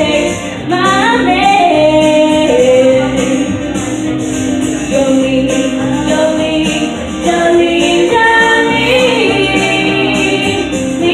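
Live country music: a woman singing lead, with other voices joining in harmony, over a band keeping a steady beat.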